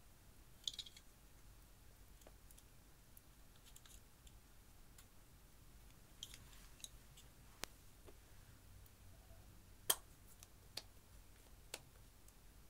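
Faint, scattered clicks and light taps of makeup being handled over glass dishes: pressed eyeshadow crushed with a plastic spatula, and a lipstick being opened. The sharpest click comes about ten seconds in.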